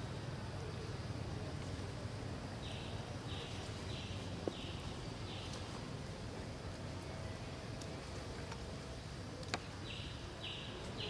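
Forest ambience: a steady outdoor hiss with a low hum beneath it. A few seconds in comes a run of five evenly spaced buzzy chirps, a little under two a second, and another run begins near the end. Two sharp single ticks fall in between.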